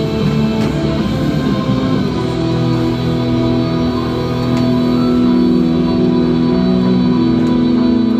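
Rock music with guitar playing from a radio.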